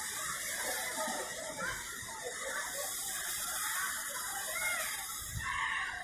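A steady hiss with many short, high chirps and squeaks over it; the chirps come thicker and louder near the end.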